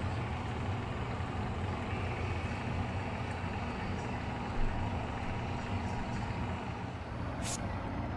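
Steady low mechanical hum and rumble with a light hiss, with one brief click near the end.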